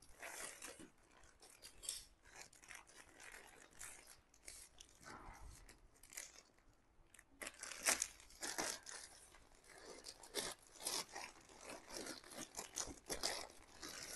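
Scissors snipping along a plastic courier mailer bag, then the plastic crinkling and rustling as the bag is pulled open and a wrapped packet comes out. Faint and irregular, with louder crinkles in the second half.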